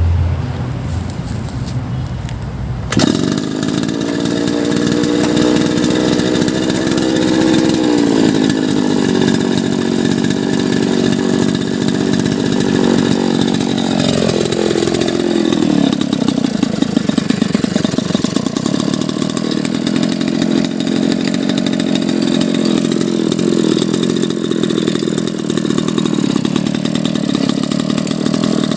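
Small petrol engine of a grass-cutting machine running loud and steady, coming in suddenly about three seconds in after a low hum. Its pitch drops a little around eight seconds and further around fifteen seconds, then holds at a lower speed.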